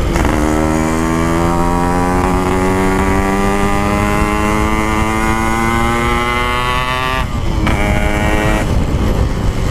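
Yamaha RX-King 135cc two-stroke single through an aftermarket PK 2 exhaust, accelerating with its pitch rising steadily for about seven seconds, then cutting out briefly twice for quick gear changes near the end.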